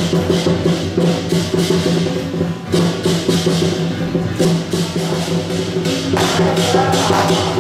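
Temple procession music: drums and percussion striking a steady quick beat under sustained pitched tones, loud and continuous.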